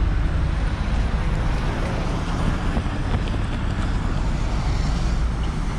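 Steady low rumble of road traffic and vehicle engines running.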